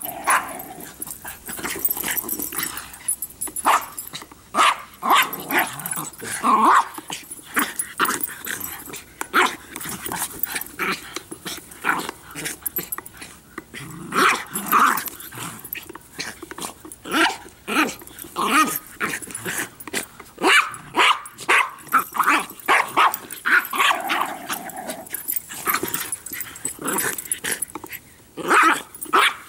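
Several Jack Russell terriers barking and growling in rough play over a ball: a rapid run of short, sharp barks, broken by a few longer growls.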